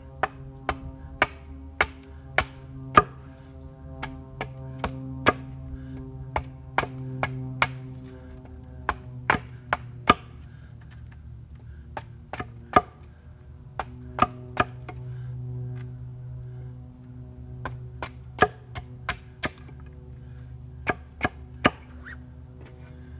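Wood being chopped with an axe: a long run of sharp, irregular strikes, about one to two a second with short pauses, over steady droning background music.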